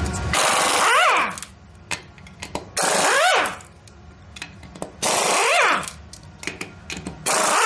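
Impact wrench run in four short bursts, loosening the ATV's rear wheel lug nuts; each burst is a loud hammering rattle that ends in a whine rising and then falling as the tool winds down.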